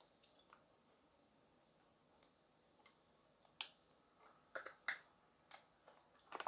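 Light clicks and scrapes of fingers opening a small paperboard perfume box, folding back its tuck flaps and cardboard insert. The first two seconds are near silent, then scattered clicks come more often toward the end.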